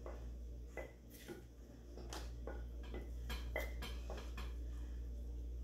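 Forks and spoons clinking and scraping against plates and a bowl while people eat: a scattered run of sharp clicks, a few of them ringing briefly.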